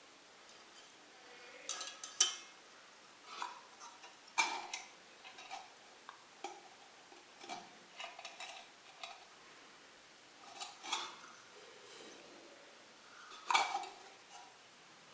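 Metal clanks and clinks of a gas sandwich toaster being handled: irregular knocks with a short ring after several of them, the loudest about two seconds in and near the end.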